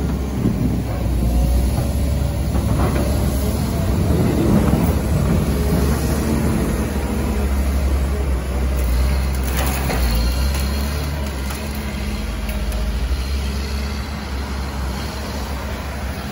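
Cat 930 wheel loader's diesel engine running steadily as it works its snow plow, with a few short knocks about nine to ten seconds in. The engine grows fainter near the end as the loader moves off.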